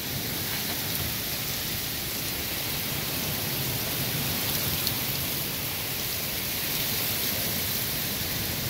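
Heavy, wind-driven monsoon rain pouring onto the street and pavement: a steady hiss of rain.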